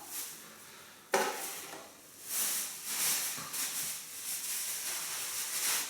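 Handling noise from the robot vacuums' dust containers at the weighing scale: a sharp knock about a second in, then steady rustling and scraping.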